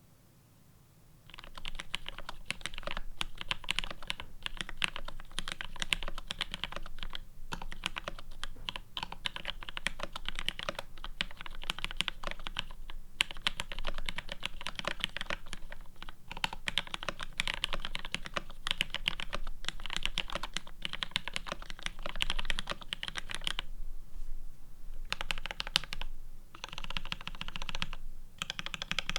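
Fast continuous typing on a plateless, PCB-mounted mechanical keyboard with Vermilion Bird linear switches and GMK keycaps. It starts about a second in, runs in dense rapid keystrokes, and pauses briefly a few times near the end.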